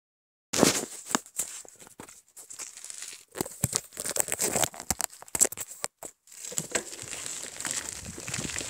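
Phone microphone handling noise: irregular crackles, clicks and rustles as fingers shift over the phone, giving way to a steadier rushing noise about six seconds in.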